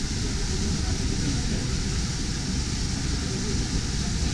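Busy hall ambience: a steady low rumble with indistinct crowd chatter.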